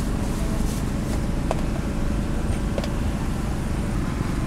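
Steady low rumbling background din of a busy outdoor night market, with a couple of faint clicks.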